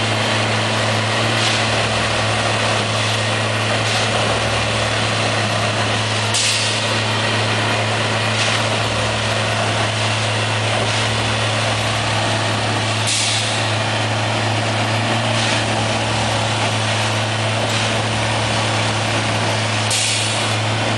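Plasser ballast tamping machine at work: its engine drones steadily under a low rumble that comes and goes, with a sharp hiss about every six to seven seconds and a weaker one about two seconds after each.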